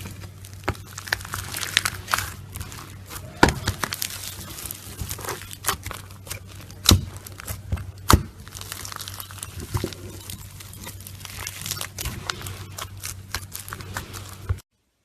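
Slime being squeezed and stretched by hand close to the microphone: a steady stream of crackling with sharp clicks and pops, ending abruptly near the end.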